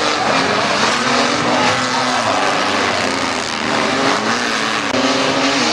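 Several banger racing cars' engines running hard round the oval, their notes overlapping and rising and falling as they rev.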